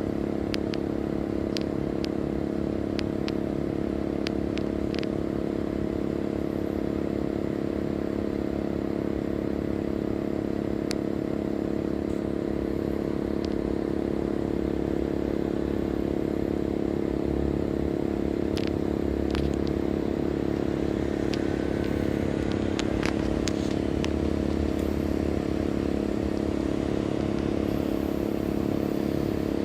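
Compressor of a Sanyo SAE-V28HF heat-pump air conditioner running in heating mode, a steady, slightly loud hum made of several even tones, with a few faint ticks scattered through it.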